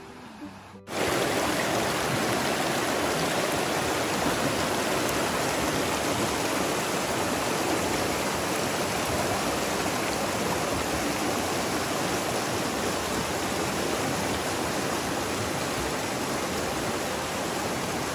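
Shallow creek rushing and splashing over rocks, a loud, steady sound of moving water that starts about a second in.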